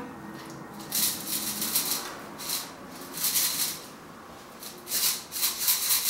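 Dry ice pellets rattling inside a rubber balloon, with rubbing and rustling as gloved hands work the balloon's neck, in several short bursts.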